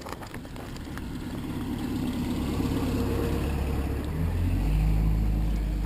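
Motorboat engine running at low speed and growing louder, its note dropping to a deeper rumble about four seconds in.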